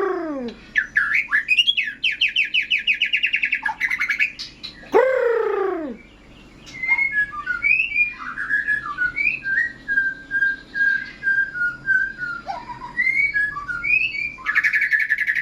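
White-rumped shama (murai batu) in full, continuous song: two loud falling whistles, one near the start and one about five seconds in, fast rattling trills, a varied run of short chirps and evenly repeated notes in the middle, and a fast trill again near the end.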